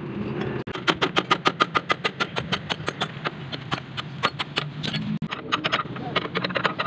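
Rapid metal-on-metal clinks from hand tools on a truck's wheel hub and brake assembly, about six a second for a few seconds, then more irregular, over a low steady hum.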